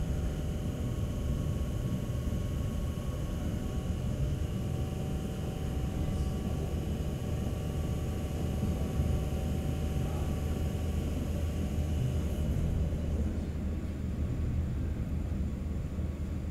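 Red Set F1, a heritage single-deck Sydney electric suburban train, running along the line: a steady low rumble of the carriage on the track. Faint steady whining tones ride over it and fade out about thirteen seconds in.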